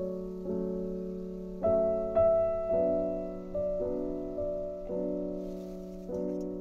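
Background piano music: slow, soft chords, a new one struck about once a second.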